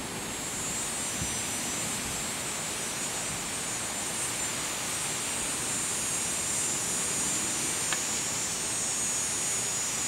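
Steady high-pitched buzz of cicadas singing, with a faint low rush beneath it.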